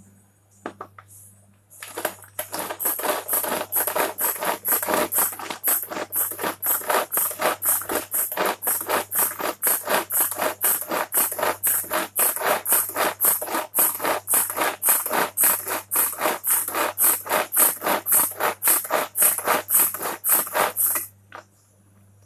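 Hand-operated food chopper crushing tomatoes into puree: a rapid, even rattle of the blades and plastic bowl, about two to three strokes a second. It starts about two seconds in and stops shortly before the end.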